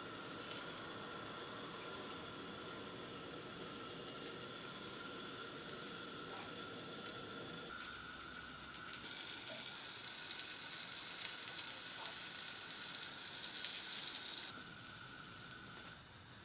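Butter sizzling as it melts and foams in a frying pan. The sizzle gets much louder and brighter about nine seconds in, then drops back suddenly about five seconds later.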